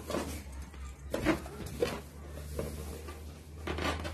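Latex balloons being pushed about and rubbing against each other, a few short rubs and bumps, over a low steady hum.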